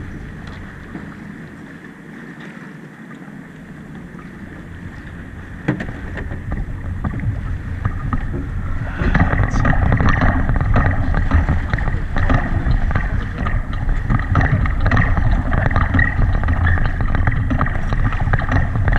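Wind rushing over the microphone and water noise aboard a sailboat under way, with one sharp knock about six seconds in. The noise grows clearly louder about nine seconds in and stays up, crackling and buffeting.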